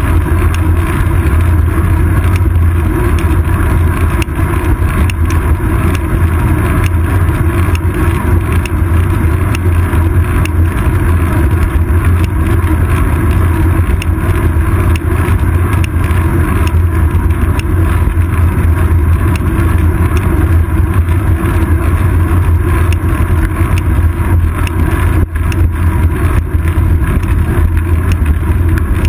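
Steady, loud low rumble of wind and road vibration on a bicycle seat-post-mounted GoPro Hero 2 in its housing as the bike rolls along, with scattered light clicks.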